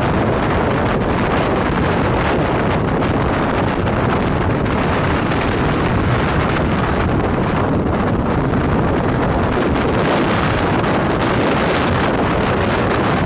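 Strong wind close to a tornado buffeting the microphone: loud, steady rushing with no let-up.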